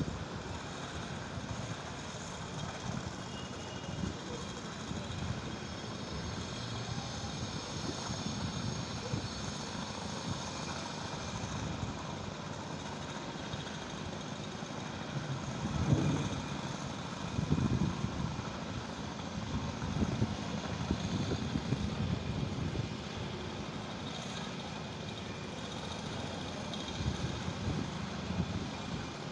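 A steady engine-like drone runs throughout, with a few louder low rumbles around the middle.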